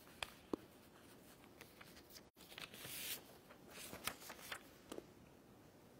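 Quiet room tone with faint rustles and a few soft clicks and taps as a person shifts at a lectern and steps away. The sound drops out for an instant a little over two seconds in.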